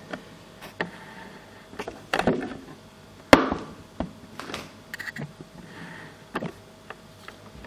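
Camera handling noise while the camera is moved and zoomed: about seven irregular knocks and taps, the loudest about a third of the way in.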